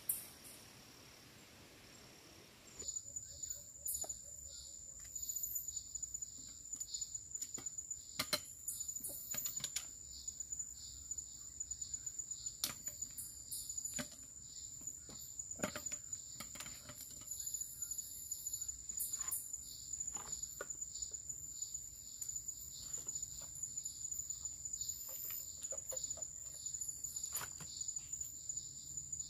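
Forest insects giving a steady, high-pitched trill that starts about three seconds in, with scattered short clicks and taps throughout.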